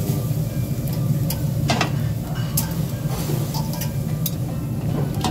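Sauce-brushed pork ribs sizzling in a wire grill basket over a charcoal fire, over a steady low hum. Metal tongs clink against the wire grill a few times.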